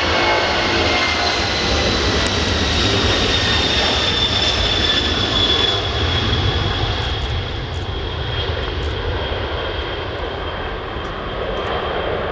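Airbus A310-300's twin turbofan engines at takeoff thrust as the airliner rolls, lifts off and climbs away: a loud, steady jet roar with a high fan whine that slowly falls in pitch. The roar eases a little after lift-off, about halfway through.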